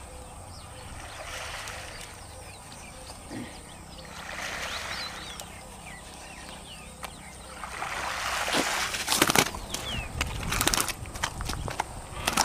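A hooked snakehead splashing at the surface in bursts as it is reeled in. It then thrashes and slaps on the bank near the end, the loudest part, in a run of sharp knocks. Small birds chirp throughout.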